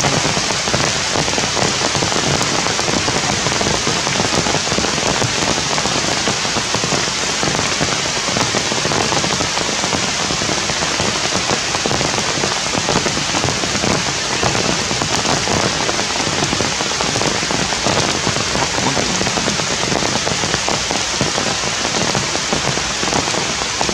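Rain falling steadily: an even, unbroken hiss of drops on surfaces.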